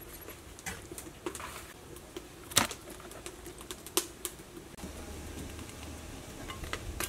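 A few scattered light knocks and clicks of kitchen handling, fish and utensils being moved about around a colander and a large aluminium pot, over faint background noise; a low steady hum comes in about five seconds in.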